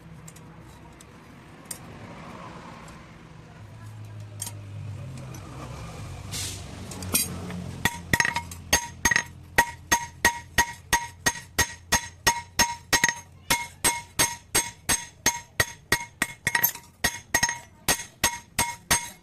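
Blacksmith's hammer striking a sickle blade on an anvil: a few scattered light clinks at first, then from about eight seconds in a steady run of ringing blows, about three a second.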